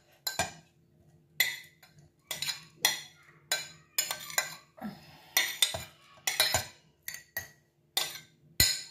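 A spoon clinking and scraping against a ceramic plate and a glass jar as chopped onions, garlic and chillies are pushed into the jar: about fifteen sharp, irregular clinks, some with a short ring.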